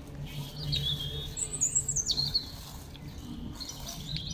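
A bird singing outdoors: a few short high chirps, then a louder high warbling phrase that steps down in pitch, about one and a half to two and a half seconds in.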